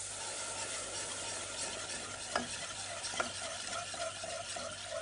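Milk pouring into a hot butter-and-flour roux for béchamel, sizzling as a spatula stirs and scrapes it around the pot. Two sharp clicks, about a second apart, come near the middle.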